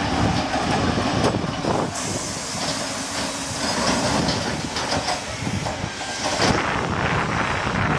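NSWGR C32 class steam locomotive 3265 and its carriages rolling slowly past, wheels knocking over the rail joints with a steady hiss of steam.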